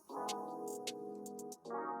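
Background music: sustained chords that change twice, with short sharp clicks scattered through them.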